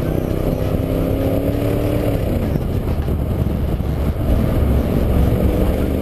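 Mercedes G55 AMG's V8 running through its side-exit exhaust while the car is driven. The engine note climbs a little, drops about two seconds in, then gets louder from about four seconds in and starts to rise again near the end.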